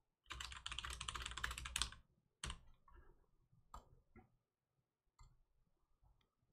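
Rapid typing on a computer keyboard for about two seconds, then a few scattered single key clicks.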